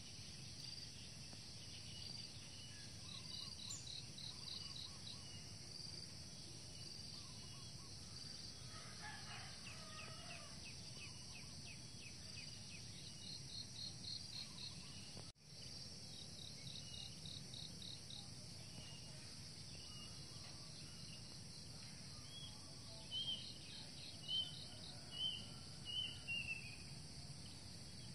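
Faint outdoor ambience of insects chirping in short, rapid pulse trains repeated every second or so, over a low steady background hiss. Several louder bird calls come near the end, and the sound cuts out for an instant about halfway.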